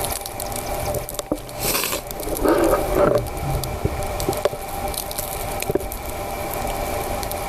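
Spam frying in a tin can lid used as a pan, sizzling steadily with many small crackles and pops.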